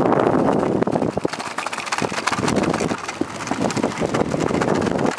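Bicycle rolling along a wooden boardwalk: a continuous rattle of quick clicks as the tyres run over the planks, with wind on the microphone.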